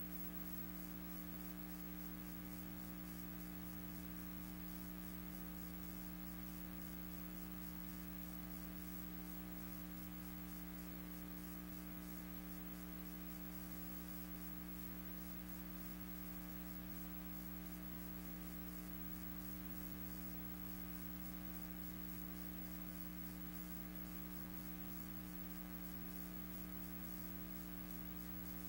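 Steady electrical hum with a layer of hiss, unchanging throughout, with no other sound.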